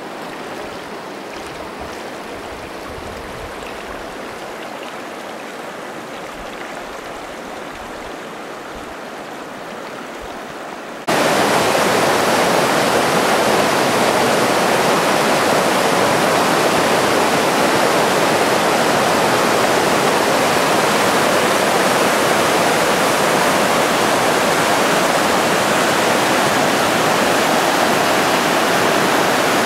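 River water flowing, then, about eleven seconds in, an abrupt switch to the much louder, steady rush of white-water rapids.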